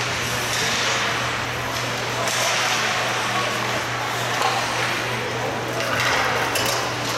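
Ice rink ambience during a hockey game: indistinct crowd voices and game noise echoing in the arena over a steady low hum, with a few sharp clicks about six seconds in.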